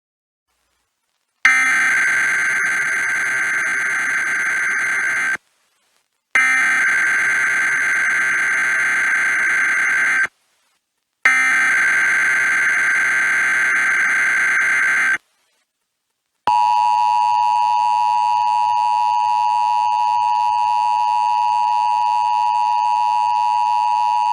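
Emergency Alert System SAME header: three bursts of digital data screech, about four seconds each with a second of silence between, followed by the EAS two-tone attention signal held steadily for about eight seconds. Together they open a Required Monthly Test alert.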